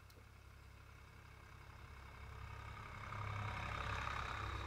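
Tractor engine running while it pulls a tine weeder through the wheat, growing louder from about halfway in as it comes up and passes over.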